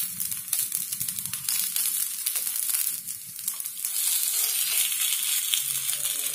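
Paniyaram batter sizzling in hot fat in the wells of a kuzhi paniyaram pan, with light scrapes and clicks of a metal spoon turning the balls over. The sizzle gets louder about four seconds in, as a ball is flipped onto its uncooked side.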